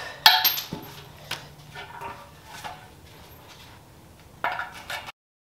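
Metal clinks and clanks from tools and suspension hardware being handled: a sharp clank just after the start, scattered lighter clinks, and a short clatter near the end before the sound cuts off abruptly.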